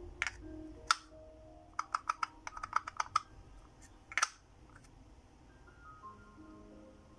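Hard ball-jointed doll head pieces clicking and knocking together as the skull cap and face shell are handled and fitted: a few single clicks, a quick run of about ten clicks around two to three seconds in, and one louder click just past four seconds. Soft background music with held notes underneath.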